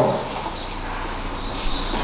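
Steady room noise, with a few faint short scrapes near the end from a marker drawing on a whiteboard.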